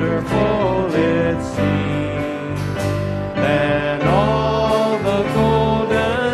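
Live worship band playing a song: acoustic guitars strumming under sung vocals, in a country-gospel style.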